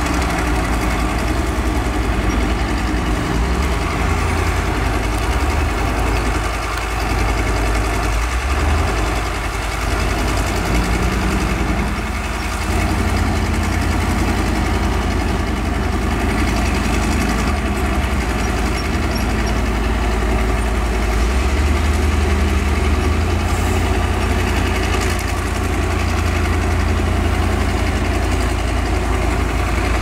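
Heavy diesel engines running: a dump truck with a bulldozer behind it. About twelve seconds in, the truck's engine speeds up and holds the higher pitch while its tipper bed rises to dump a load of soil.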